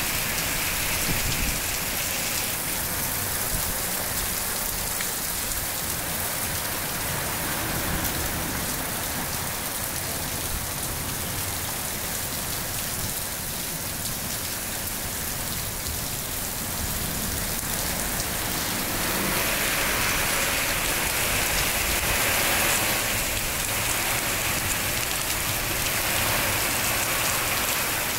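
Moderate rain falling steadily, a little louder about two-thirds of the way in.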